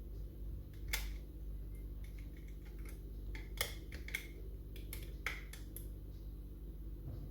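Scattered sharp metallic clicks of lever-lock picks working inside a lever mortice lock, as the pick probes and lifts the levers against tension to find the binding one. The clicks come irregularly, a few seconds apart, the strongest about a second in and between three and a half and five and a half seconds in.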